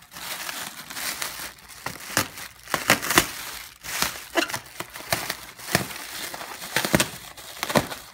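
Plastic air-cushion packing wrap crinkling and crackling in irregular bursts as it is pulled apart and cut open with a knife.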